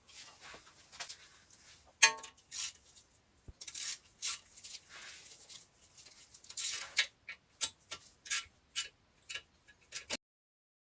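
Irregular metallic clicks and clinks of hand tools and small metal parts being worked, with one sharp ringing clank about two seconds in; the sound stops abruptly shortly before the end.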